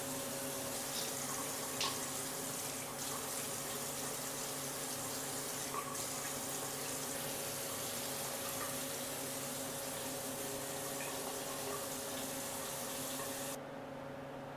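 Water running steadily from a tap into a sink, with a couple of small clicks. The flow stops suddenly near the end.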